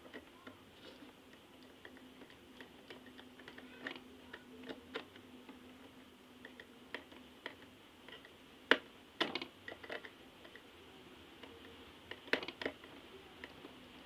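Scattered light clicks and taps of a small screwdriver working at the terminal screws of plastic lampholders, with two sharper knocks about two-thirds and nine-tenths of the way through. A faint steady hum runs underneath and stops about two-thirds of the way through.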